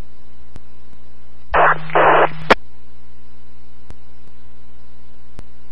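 Police radio scanner channel between call-outs: a steady hiss and hum. About a second and a half in, a short transmission comes through in two brief bursts of radio noise with no clear words and ends with a sharp click.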